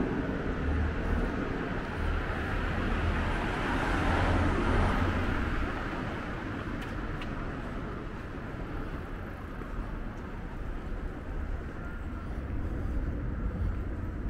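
Street traffic: a motor vehicle passes close by, its tyre and engine noise swelling to a peak about four to five seconds in and then fading to steady low road noise.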